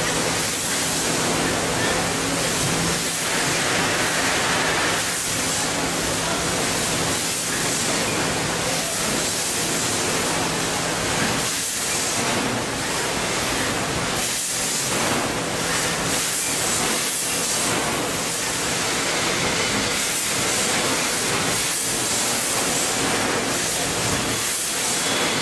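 Packaging-line machinery running, conveyor belts and packing machines: a steady hiss-like din with a faint low hum underneath.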